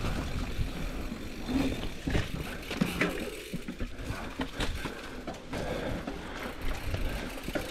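Mountain bike rolling over rough, technical singletrack: tyre and trail noise with scattered knocks and rattles as the bike goes over bumps.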